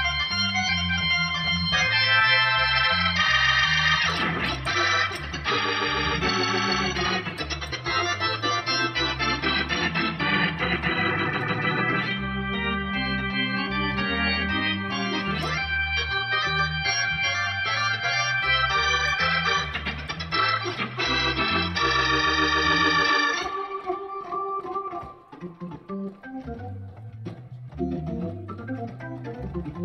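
A custom-assembled Hammond B3/A100 organ being played: full sustained chords over a bass line that steps from note to note. About three-quarters of the way through the playing drops to a quieter, sparser passage.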